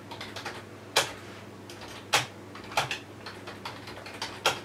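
Typing on a computer keyboard: a run of light key clicks with four louder key strikes at uneven intervals.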